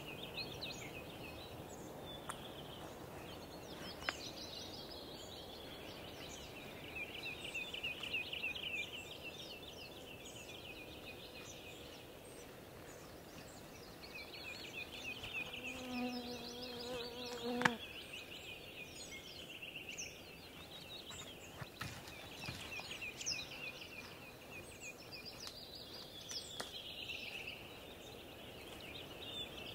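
Small songbirds singing fast, falling trills that come back every few seconds over a forest background, with an insect buzzing close by for a couple of seconds about halfway through. A few light knocks and rustles come from a mosquito net being taken down and a dead branch being handled.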